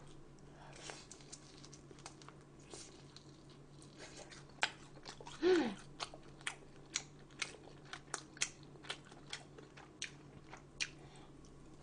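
Close-miked eating sounds: chewing and crunching, with a run of sharp clicks from about four seconds in and a short falling sound midway, the loudest moment.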